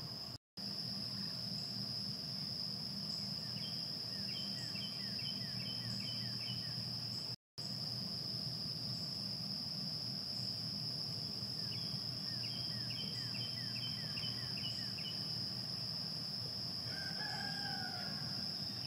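A steady, high-pitched trill of insects runs throughout. Twice a bird gives a quick series of short, repeated chirps, and a rooster crows once near the end.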